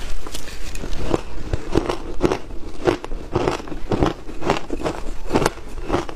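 Shaved ice being crunched and chewed in the mouth: a quick series of crisp crunches, about two a second.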